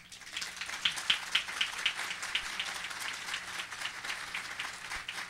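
Audience applauding: dense clapping that swells up over the first half second and then holds steady.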